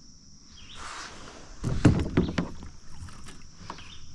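Water splashing beside a kayak as a hooked pike is brought alongside to be netted, with a cluster of loud knocks against the hull about two seconds in. Crickets chirp steadily behind it.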